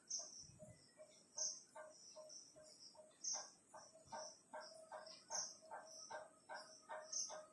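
Faint, insect-like chirping: short high chirps repeating about twice a second, with a softer lower pulsing underneath.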